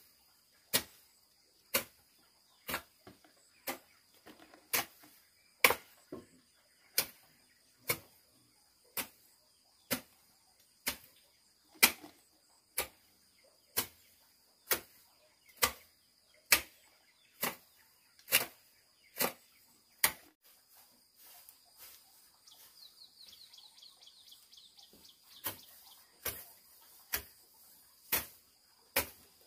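Sharp, evenly spaced knocks, about one a second, like a hand tool striking repeatedly; they stop for about five seconds near the end, then resume. A steady high insect drone runs underneath.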